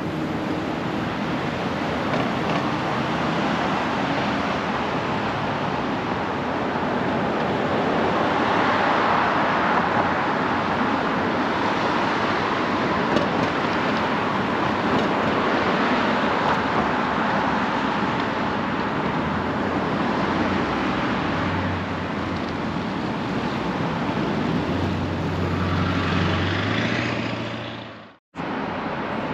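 City street traffic: a steady wash of tyre and engine noise that swells as vehicles pass, with a low engine hum in the last few seconds. The sound cuts out abruptly for a moment about a second before the end.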